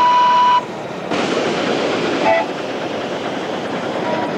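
Whistle of a ride-on live steam miniature locomotive: a steady blast that stops about half a second in, then a brief toot at a different pitch about two seconds in, over a steady hiss of escaping steam.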